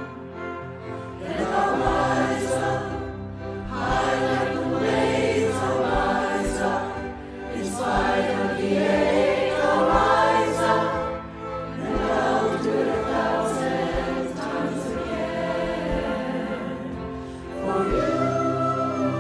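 Music: a choir singing long, swelling phrases over a steady low accompaniment, with a soft low beat about every two seconds.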